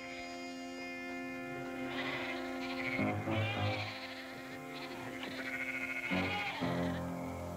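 Sheep bleating a few times, about two, three and six seconds in, over dramatic background score music with long held notes.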